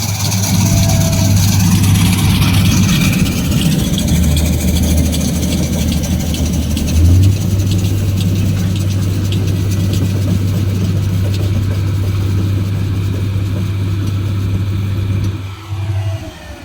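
Engine of harvest machinery running steadily, a low drone with clattering noise above it, which drops away near the end.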